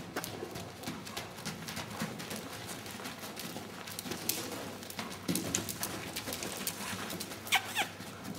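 A horse trotting on a lunge line, its hooves thudding and clicking on the soft arena footing. Near the end come two short falling squeaks, the loudest sounds here.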